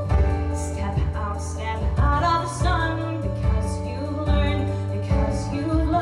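A woman singing a musical-theatre song into a microphone over musical accompaniment with a steady bass and a light beat.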